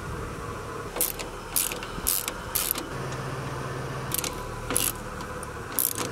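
A hand socket ratchet clicking in short bursts, one burst on each back-swing, about half a second apart with a pause in the middle, as a 14 mm nut is undone from the top of a shock absorber mount.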